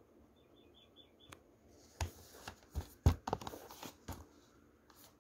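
A plastic DVD case being picked up and turned over in the hand: a run of clicks, knocks and rustling, the sharpest knock about three seconds in.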